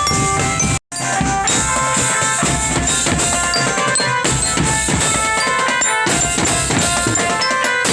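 Drum band playing: bass and snare drums beating under a melody of sustained tones. The sound cuts out completely for an instant just under a second in, then carries on.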